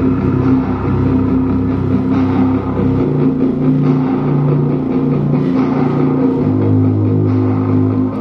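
Bass-heavy music played loud through a small 5.25-inch LG 4-ohm, 50-watt subwoofer driver in a wooden box, run from a mini amplifier turned up to maximum. Long held bass notes change pitch about three seconds in and again near the end.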